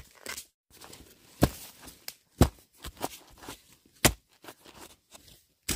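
A series of irregular sharp knocks and clicks, four louder ones spaced about a second apart with softer ticks between them.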